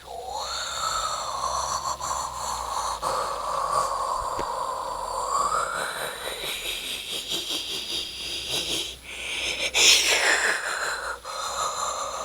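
Evil-laugh sound effect: a long, pulsing laughing voice that starts suddenly, its pitch bending up and down, with a loud swoop up and back down about ten seconds in.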